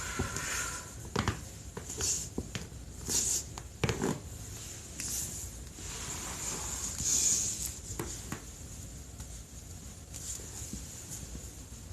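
Clothing and body rustling as a person twists and stretches to self-adjust her back, with a few sharp cracks of the spinal joints, most of them in the first four seconds.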